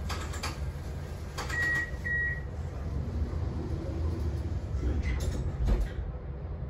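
Low steady hum inside a standing tram's cab, with two short high electronic beeps a moment apart about a second and a half in, and a few faint clicks.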